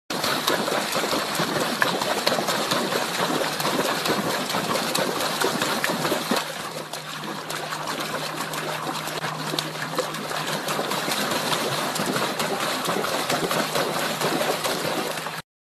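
A dog splashing in shallow water, pawing and churning it with its front legs: steady splashing that cuts off suddenly near the end.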